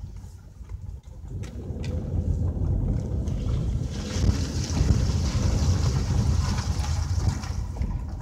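Car driving along a wet, slushy unpaved lane, heard from inside the cabin: a steady low road rumble, with tyre hiss on the wet surface growing louder about halfway through.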